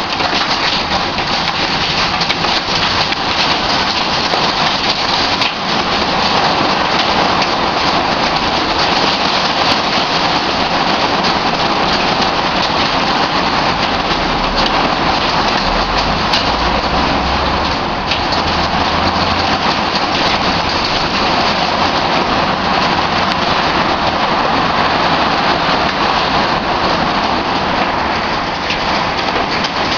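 Heavy rain and hail falling on a tiled patio: a dense, steady hiss with many small clicks of stones landing throughout.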